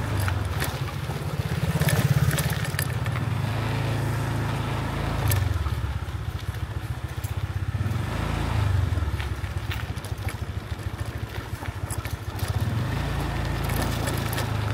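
Small motorbike engines running close by, their low rumble swelling several times as bikes pass, with scattered light clicks.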